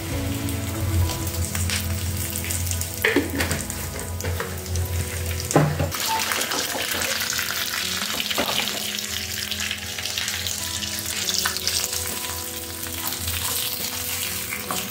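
Tempering spices (mustard seeds, cumin, fenugreek, dried red chillies and curry leaves) sizzling in hot coconut oil, with a couple of sharp clinks. The sizzling grows much louder about six seconds in. Soft background music plays under it.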